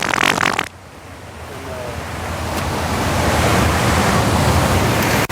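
Wind rushing on the microphone: a loud, rumbling noise that drops away suddenly under a second in, then swells back up over the next few seconds.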